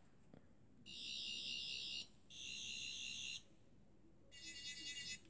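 Toy Doctor Who sonic screwdriver, extended, playing its electronic sound effect three times: high-pitched warbling buzzes, each about a second long, with short gaps between.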